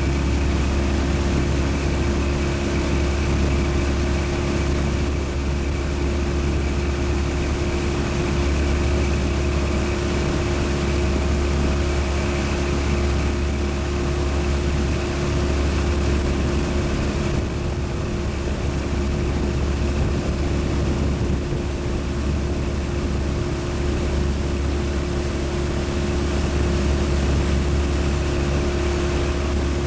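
Motorboat engine running at a steady speed, heard from on board, a constant low hum with steady tones above it.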